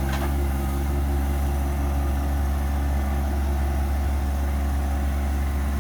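John Deere 1025R compact tractor's three-cylinder diesel engine running steadily.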